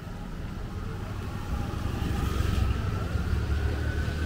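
Motorcycle engine approaching, its low hum growing steadily louder.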